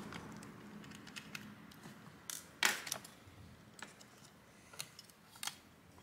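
Light plastic clicks and one short scrape as a laptop's small plastic cooling fan assembly is handled and worked loose by hand.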